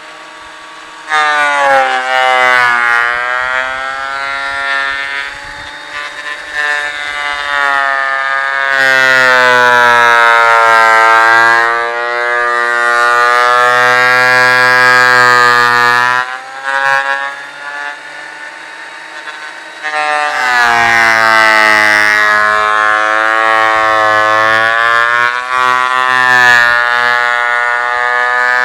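Ridgid benchtop thickness planer running loud, its motor whine sagging in pitch and recovering as the cutterhead bites into an oak plank. It starts abruptly about a second in, eases off briefly about two-thirds of the way through, then comes back under load.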